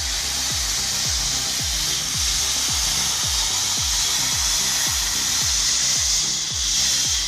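A chainsaw cutting through wood, a steady rasping hiss, under background music with a thumping beat about three times a second.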